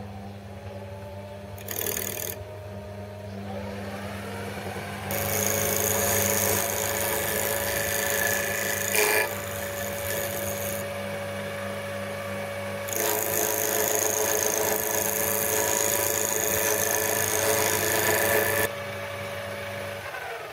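Small lathe running, with a wood-turning tool cutting a timber block: a steady motor hum under two long spells of loud scraping cuts, each about six seconds. The motor stops near the end.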